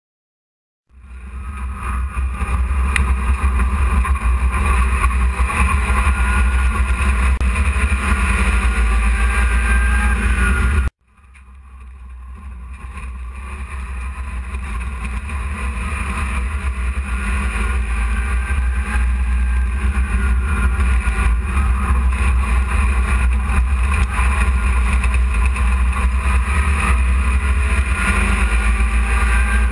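Race truck's engine running steadily, heard from inside the cab, a loud low drone. The sound starts about a second in, cuts out abruptly about eleven seconds in, and swells back up over several seconds.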